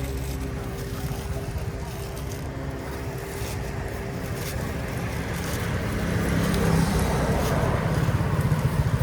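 A motor vehicle engine running steadily, growing louder over the last few seconds.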